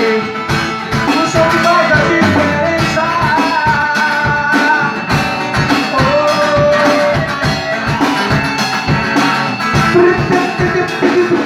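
Instrumental break in a band arrangement: drums keep a steady beat under a sustained melodic lead line, with no singing.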